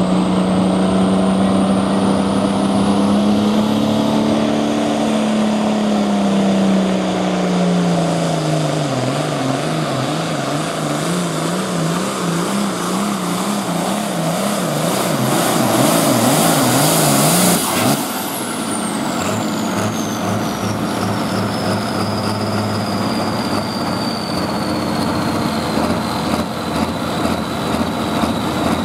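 John Deere hot farm tractor's 466 cubic-inch turbo diesel under full throttle pulling the sled. Its note sinks as the engine loads down, then wavers rapidly up and down, about twice a second. A little over halfway the throttle is chopped: the engine drops to a low steady run while a high turbo whine winds slowly down.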